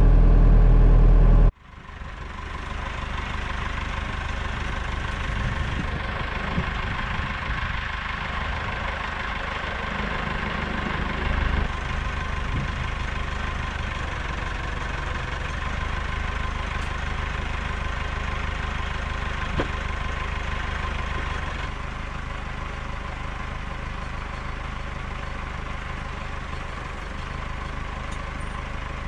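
Massey Ferguson tractor's diesel engine idling steadily. For the first second and a half it is heard louder from inside the cab, then it drops suddenly to a steadier hum heard from outside.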